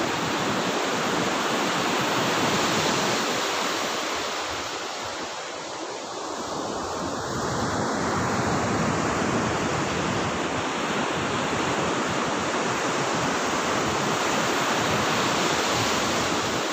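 Sea surf breaking and washing up a sandy beach: a steady rush of waves that eases briefly about six seconds in and then swells again.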